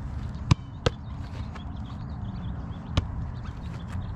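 Sharp thuds of a football being struck and caught in goalkeeper shot-stopping practice: two close together about half a second in, another near the three-second mark, over a steady low rumble.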